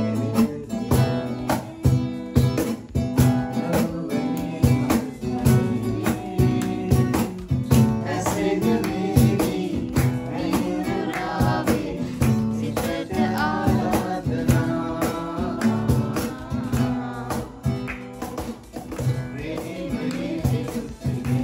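Acoustic guitar strummed in a steady rhythm while a man sings along. His voice stands out most from about eight seconds in.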